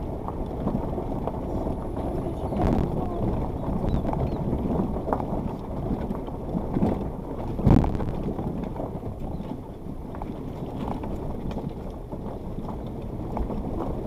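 Suzuki Jimny heard from inside the cabin as it crawls at walking pace over a rough, rocky riverbed track: a steady rumble of engine and tyres on loose stone, with the body jolting and knocking over rocks, a sharp knock a few seconds in and the loudest a little past halfway.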